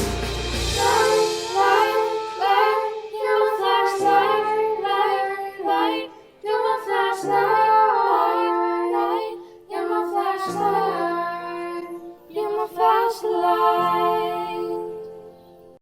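Music: a sung melody without clear words over held low accompanying notes that change about every three seconds, fading out near the end.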